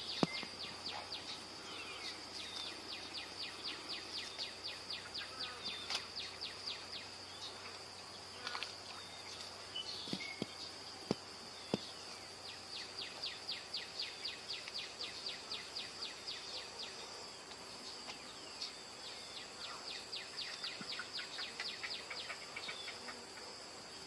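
Insects chirping: a faint, steady high trill of rapid, regular pulses that swells in bouts of a few seconds, with a few soft clicks near the middle.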